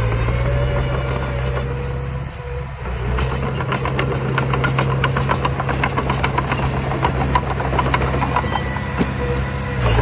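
Diesel engine of a heavy earthmoving machine running steadily, with a brief dip about two and a half seconds in. A rapid, fairly even run of sharp metallic clicks or clanks follows from about three seconds in until near the end.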